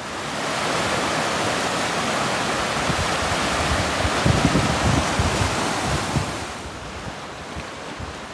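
Fast mountain creek rushing over rocks as whitewater, a steady full hiss of water, with wind buffeting the microphone about halfway through. It drops in level after about six and a half seconds.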